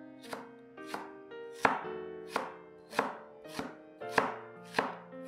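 Cleaver slicing fresh ginger into strips on a wooden chopping board: steady, evenly spaced chops, about nine of them, a little under two a second.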